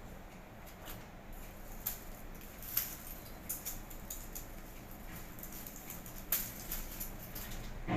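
Light rustling with scattered sharp clicks and snaps, a few standing out louder: the handling noise of picking citrus fruit among leaves and twigs.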